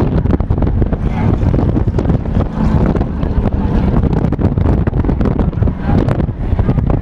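Strong storm wind buffeting the camera microphone in loud, irregular low gusts, with dirt-track race cars running on the oval underneath.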